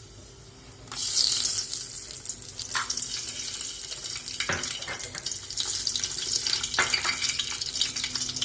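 Whole spices (cinnamon, cardamom, cloves) sizzling in hot oil in a cooking pan. A steady hiss starts about a second in, with a few light clinks from a utensil against the pan.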